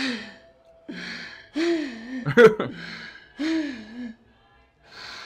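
A person breathing hard, with gasping breaths alternating with short moans that rise and fall in pitch, about four times over. A sharp click about halfway through is the loudest moment.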